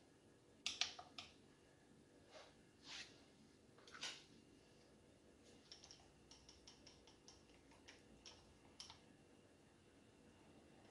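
Wire whisk clicking against a ceramic bowl as it stirs a thin liquid, light clicks about four a second in the second half. About a second in there are a few sharper, louder clinks against the bowl.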